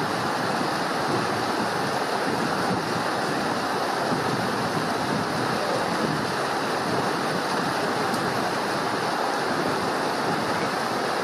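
Fast mountain stream rushing and splashing over rocky cascades through a stone bridge arch: a steady, unbroken rush of water.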